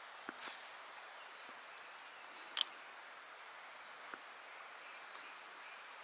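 Quiet outdoor stream-side ambience, a faint steady hiss of water and forest. A few short sharp clicks break it; the sharpest comes about two and a half seconds in.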